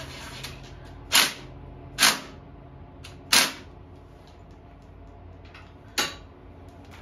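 Cordless impact wrench hammering the flywheel nut tight on a 150cc GY6 engine in four short bursts, the first three about a second apart and the last after a longer pause.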